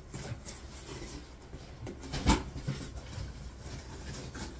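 Packing material being pulled out of a cardboard box and handled: scattered soft rustles and clicks, with one sharp knock a little after two seconds in.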